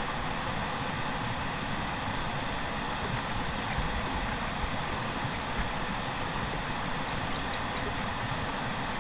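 Steady rush of creek water over the waterfall, with a few faint high bird chirps about seven seconds in.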